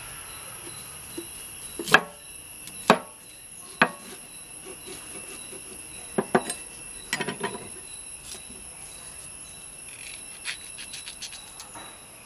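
Large kitchen knives chopping green chillies on wooden boards: irregular sharp knocks, some single and some in quick runs of chops. A steady high-pitched insect drone runs underneath.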